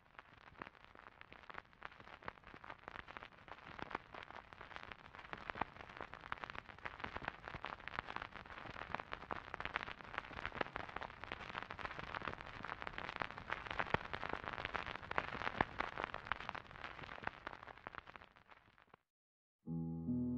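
A dense crackling hiss full of fine clicks, swelling slowly, then cutting off suddenly. After a brief silence, piano music begins just before the end.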